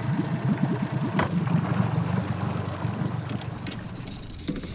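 Outboard motor on a jon boat running under way over water, a steady low rumble that fades lower near the end.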